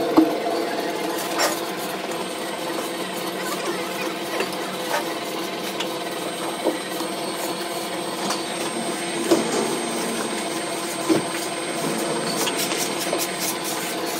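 Workshop machinery running with a steady hum, with scattered sharp metal clicks and knocks, the louder ones near the start and about two-thirds of the way in.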